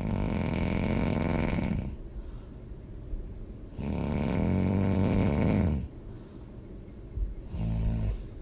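A person snoring loudly: two long snores of about two seconds each, then a shorter one near the end.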